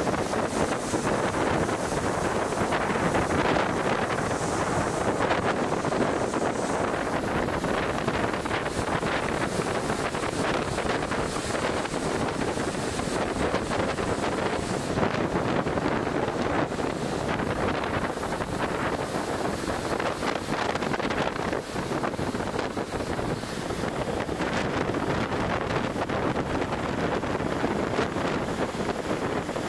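Strong wind blowing across the microphone over the rush of a rough, breaking sea and the ship's foaming wake, one steady, unbroken wash of noise with no let-up.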